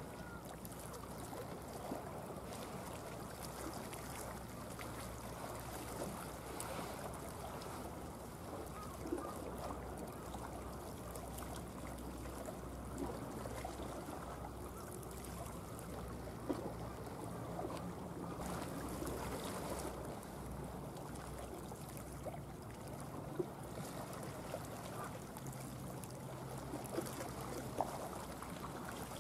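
Low steady drone of ships' engines offshore, over a faint wash of water with small scattered ticks.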